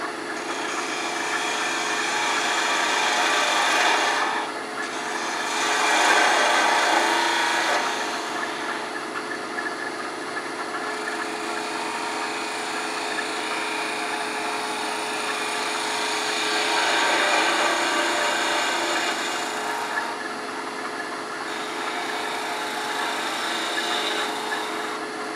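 Wood lathe running while a spindle gouge and then a skew chisel cut the spinning wooden screwdriver-handle blank: a continuous shaving hiss over the lathe's steady hum, swelling and easing as the tool moves along. The skew is taking a smooth planing cut.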